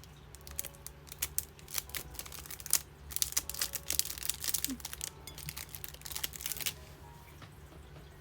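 Crinkling and rustling of plastic packaging being handled, a dense run of irregular sharp crackles.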